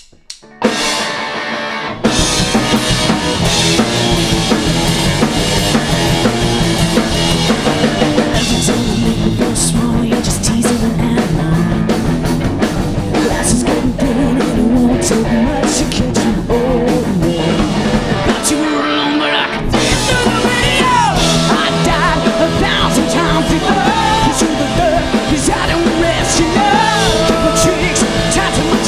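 A glam-punk rock band playing a song live on drum kit and electric guitar. It starts thinly, and the full band comes in loud about two seconds in, with a short break in the low end a little past the middle.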